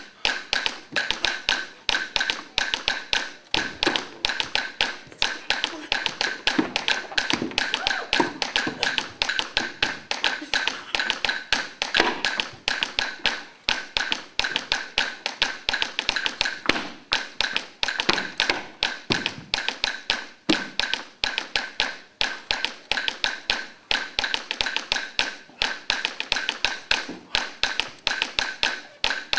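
Salsa percussion rhythm: a fast, steady run of sharp taps, about five a second.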